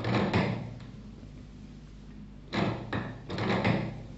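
Small card-printing machine running through its cycle, a clunking, sliding mechanical stroke for each card printed: one right at the start and two more close together about two and a half seconds in.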